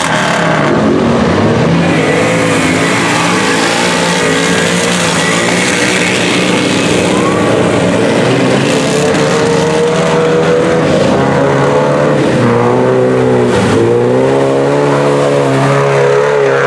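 Off-road 4x4 engines revving hard as the vehicles push through deep mud, pitch climbing and dropping again and again. The revving is strongest in the second half.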